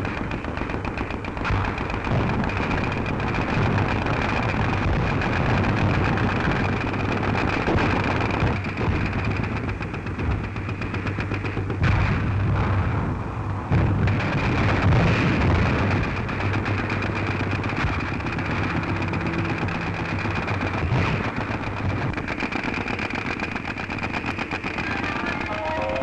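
Sustained rapid machine-gun fire mixed with gunshots, with a couple of heavier blasts a little before the middle, over a steady hum.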